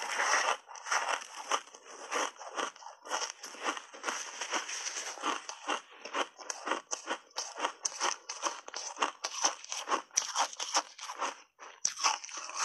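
Ice crunching between the teeth: a bite from a frozen block of mixed-berry ice coated in matcha powder, then steady chewing with many rapid, short crunches.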